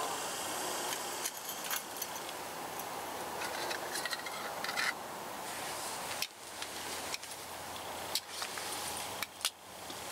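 Scattered metallic clicks and clinks from a folding multitool's can opener on a tin can: the blade finishes the lid, the lid is bent up, and the tool is folded and set down on stone, over a steady hiss.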